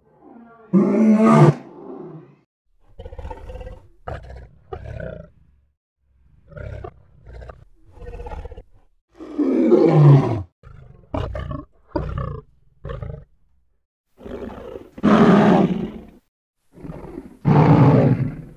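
Lion roaring: four long, loud roars, with runs of short grunts between them.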